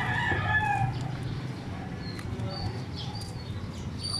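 A rooster crowing once, the crow tailing off and falling in pitch about a second in, over a steady low street hum. A few short, high chirps follow later.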